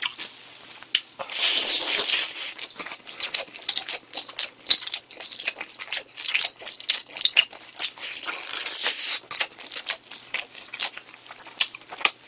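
Close-miked eating of sauce-coated fried chicken: biting, crunchy chewing and wet mouth clicks throughout, with two longer noisy sucking sounds, about a second in and again about eight seconds in, as the sauce is sucked off the meat.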